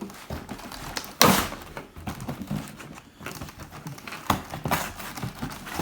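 Cardboard box being pulled open and unfolded: rustling and scraping of cardboard with several sharp knocks and thuds, the loudest about a second in.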